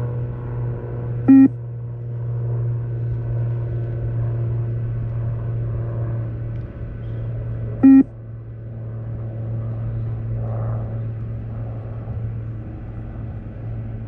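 Two short electronic beeps from a beep-test (multi-stage fitness test) recording, about six and a half seconds apart, each marking the time to reach the end of a shuttle. A steady low hum runs underneath.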